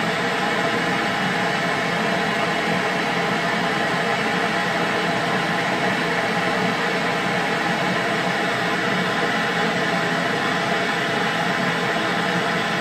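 Handheld propane torch burning with a steady, unbroken hiss of the flame.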